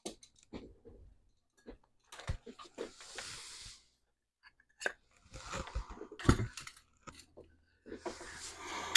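Handling noises on a work bench: scattered clicks, short spells of rustling and a sharper knock about six seconds in, as tools and a small metal parts dish are picked up and moved.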